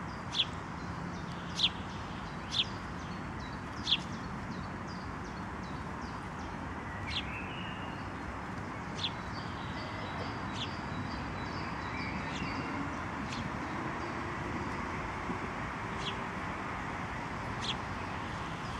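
House sparrows chirping: about ten short, sharp chirps at irregular intervals, the loudest in the first few seconds, with faint twittering in the middle, over a steady background hiss.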